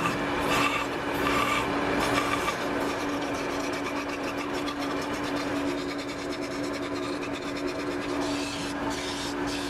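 Small vertical belt sander running with a steady hum while a plywood gear's teeth are pressed against the belt, a continuous rasp of wood on abrasive as the tooth edges are smoothed and rounded.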